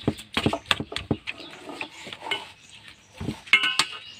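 Metal spatula clinking and scraping against a stainless steel bowl while mixing raw fish, with a quick run of clinks in the first second or so. About three and a half seconds in come a thump and a short, loud animal call.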